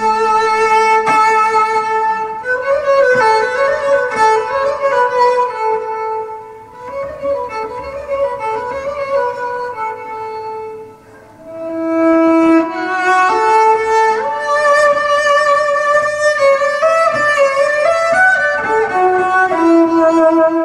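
Solo cello music playing back over Klipsch La Scala horn loudspeakers: a slow, bowed melody of long held notes that softens in the middle and swells again about halfway through.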